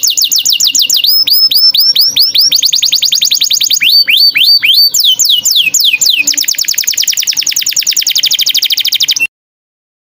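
Small songbird song from a bird-song tutor recording: a fast, even trill of high notes, broken twice by runs of sharp downward-sweeping whistles. It cuts off suddenly about nine seconds in.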